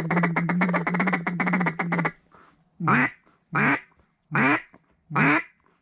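Hand-blown duck call calling to ducks: a fast run of chattering notes for about two seconds, then four single drawn-out quacks about 0.8 s apart.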